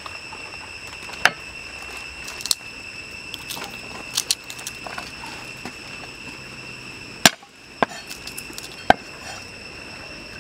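Cleaver knife striking a wooden chopping block as garlic cloves are cut: about six or seven sharp knocks at uneven intervals, the loudest about seven seconds in.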